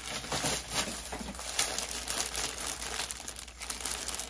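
Plastic packaging crinkling and rustling in irregular bursts as a bagged 3-pack of leggings is handled and unwrapped.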